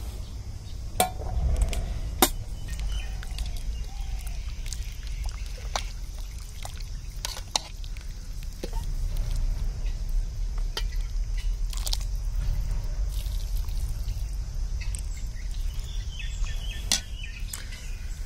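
Steel spoon and ladle clinking sharply against steel plates and vessels while rice is served and chicken rasam is ladled and poured over it, with a steady low rumble underneath.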